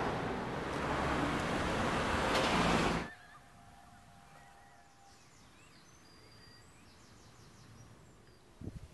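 Loud, steady road-traffic noise that cuts off abruptly about three seconds in, giving way to quiet open-air ambience with faint bird chirps.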